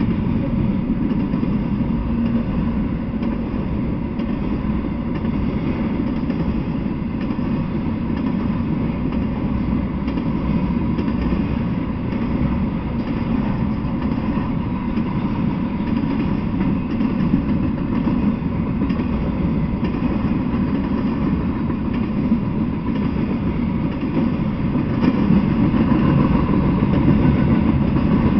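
Intermodal freight train passing: a steady rumble of wheels on the rails, a little louder near the end.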